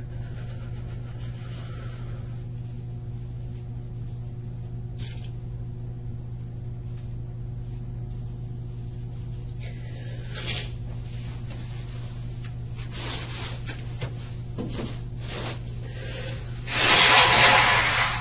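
Steady low hum of a small room, broken by a few faint rustling or shuffling noises, then a louder, roughly one-second rushing noise near the end.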